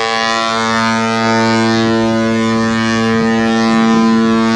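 Cruise ship horn sounding one long, steady, deep blast.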